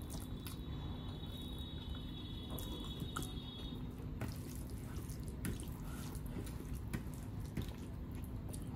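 Bare hand squishing and mixing rice with runny dal on a steel plate: wet squelching with scattered small smacks and clicks.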